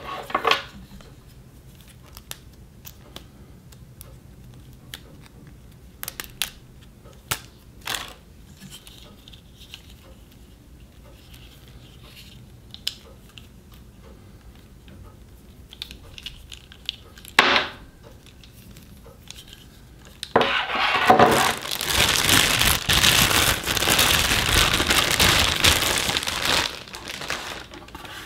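Scattered light clicks and taps of a plastic power adapter and its cord being handled. About two-thirds of the way in, several seconds of loud plastic-bag crinkling as the lamp is unwrapped from its packaging.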